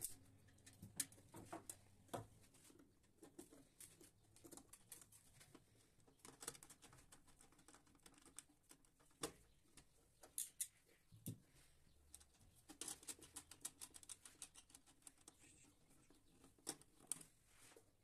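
Faint scattered clicks and taps of hand wiring work inside an electrical panel: wires and a screwdriver being handled, with quick runs of clicks in places.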